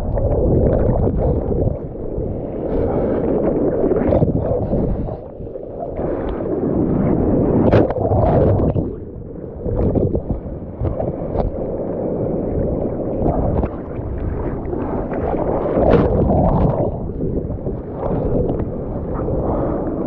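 Sea water sloshing and splashing around the microphone, with wind buffeting it: a continuous churning rumble with sharper splashes every few seconds.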